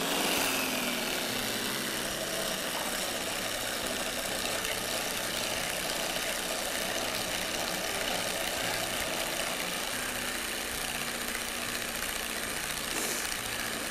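Electric hand blender with a wire whisk attachment running steadily, whipping an egg-yolk mixture for zabaglione.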